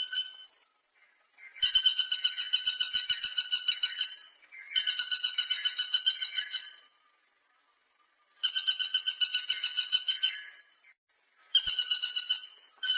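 Woodpecker call: a rapid run of high, ringing notes, about ten a second, repeated in phrases of about two seconds with short pauses between.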